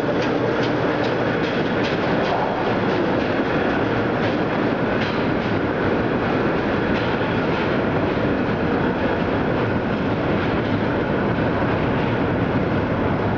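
Vintage R1/9 subway train running through the underground station and tunnel: a steady, loud rumble of wheels on rail, with wheels clicking rhythmically over rail joints in the first few seconds.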